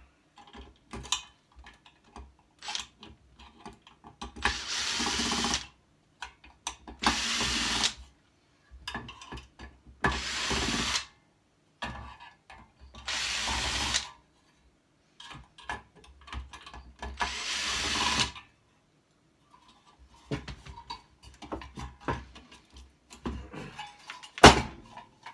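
Cordless drill-driver backing screws out of a circuit board in a metal chassis: five short runs of the motor, each about a second long, with clicks and handling of metal parts between them. A sharp knock comes near the end.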